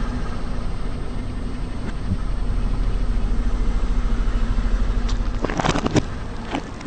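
Car engine running with a steady low rumble. About five and a half seconds in comes a short burst of crackling as something crunchy is crushed under a tyre.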